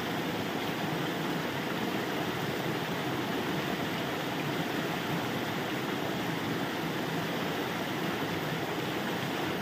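Water pouring steadily from a spout and splashing into a shallow stream as a man rinses his head under it, with small cascades trickling over the rocks behind.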